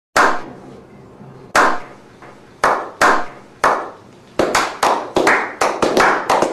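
A slow clap: sharp hand claps, at first about one a second, then faster and from several people from about four and a half seconds in, building toward applause.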